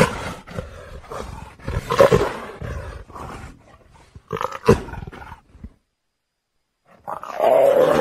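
A big cat roaring and growling: harsh, rasping calls about two seconds apart, a short silence, then a longer roar starting near the end.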